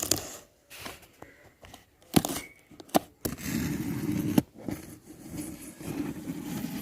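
Shipping packaging being torn and cut open by hand: several sharp clicks and knocks, then stretches of rough scraping and rustling.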